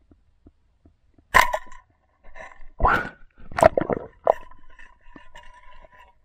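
Muffled knocks and clatter heard underwater as a rubber-powered pole spear is shot and handled among river rocks: four sharp knocks about a second apart, then a faint steady tone with small clicks.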